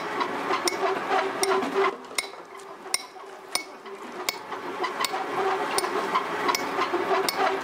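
Hammers knocking on stone at a fort restoration site, about two strikes a second at uneven spacing, over a steady hum. The sound is heard as film soundtrack played through a hall's loudspeakers.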